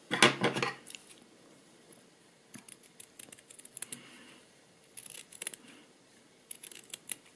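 Small Fiskars needlework scissors snipping through the seam allowance of a knit jersey cuff, in short runs of quick snips with pauses between. A brief, louder rustle in the first second, as the fabric is handled.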